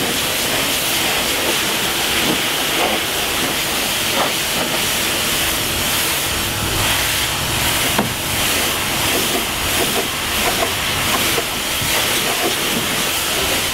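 Pressure washer jet spraying water onto a boat's fiberglass step, a steady loud hiss of spray against the hull as moss and grime are blasted off.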